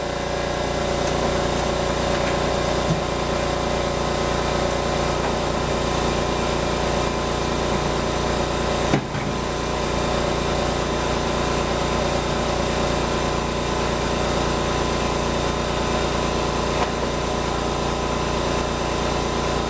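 Shop air compressor running steadily, coming up to full level within the first second, with a brief knock about nine seconds in.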